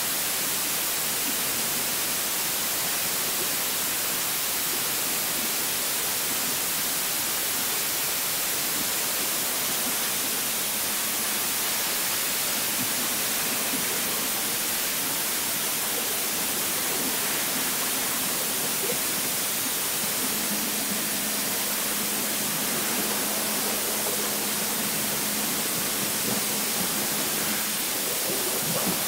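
Water-jet cutting machine's high-pressure jet hissing steadily. A faint low hum joins about two-thirds of the way in.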